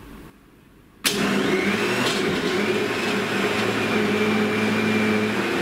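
High-power countertop blender switching on suddenly about a second in and running steadily at full speed, blending vegetables, herbs and water into a green smoothie.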